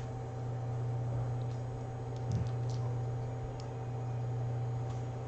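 Steady low hum with light hiss, and a few faint clicks about halfway through.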